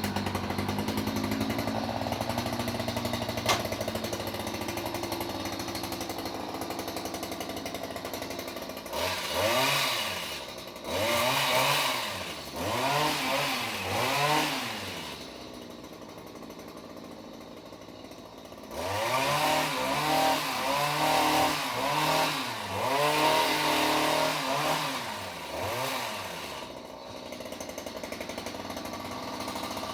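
Chainsaw engine running at a steady speed, then revved up and down over and over in two runs, about ten and about twenty seconds in, with a steadier stretch between.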